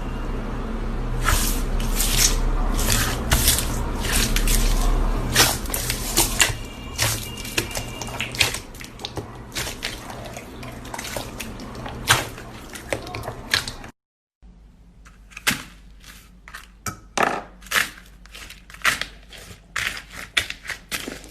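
Slime being squeezed and poked by hand, giving many short sticky clicks and pops. The sound cuts out briefly about two-thirds of the way through, then the clicks resume with less background hum.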